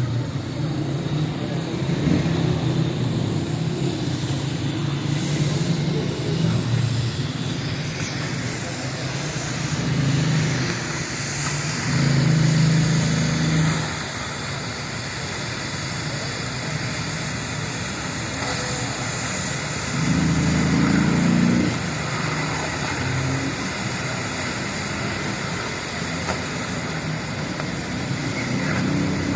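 A low, engine-like machinery hum running steadily, swelling louder a few times, around ten, twelve and twenty seconds in.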